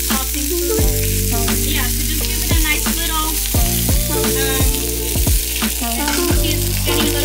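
Sliced onions sizzling in a nonstick frying pan, with a spatula scraping and turning them now and then. Background music with a steady beat plays underneath.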